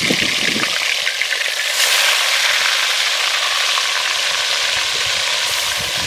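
Whole fish frying in hot oil in a pot, a steady sizzle that grows louder about two seconds in as more fish go into the oil.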